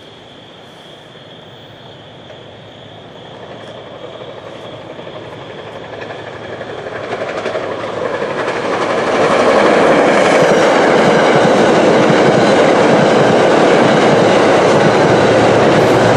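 Metro-North passenger train hauled by a GE P32 Genesis diesel, approaching and running through the station without stopping. Its rumble grows steadily louder for about nine seconds, then becomes a loud, even rush of wheels clattering over the rails as the cars pass at speed.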